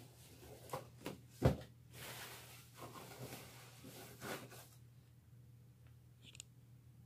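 Packaging being handled: a plastic bag crinkling and rustling, with a few light knocks, the sharpest about a second and a half in. It dies down after about five seconds.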